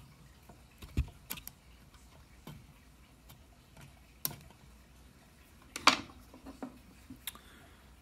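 Screwdriver tip scraping and clicking against the metal of the Blue Yeti microphone's mini-USB port as the port is pried to break it: scattered small sharp clicks, the loudest cluster about six seconds in.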